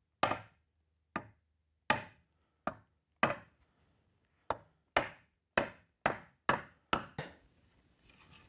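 Rubber mallet striking a walnut plywood top board, about a dozen sharp blows with a pause midway and quicker blows toward the end. The blows drive the board down onto dowel centers so their points mark where to drill the dowel holes. Near the end comes a faint shuffle as the board is lifted off.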